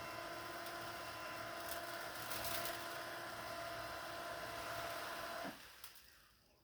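Litter-Robot 3's globe drive motor running with a steady hum and whine, a little louder and noisier about two and a half seconds in. About five and a half seconds in the motor stops, its tone dropping as it winds down.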